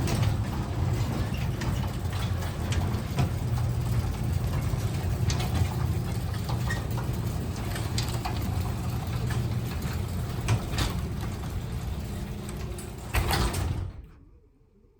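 A 3/4 horsepower Craftsman garage door opener running a 16 by 10 Wayne Dalton sectional door down: a steady motor hum with light rattles and clicks from the door. A few knocks come about 13 seconds in, and the opener stops suddenly about a second later as the door closes.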